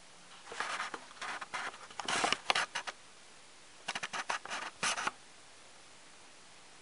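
Packaging being handled: two clusters of short, irregular scratching and rustling sounds, the first in the opening three seconds and the second about four seconds in.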